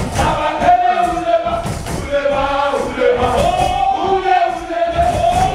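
A group of voices singing a chant together, long held notes sliding between pitches over a steady rhythmic beat.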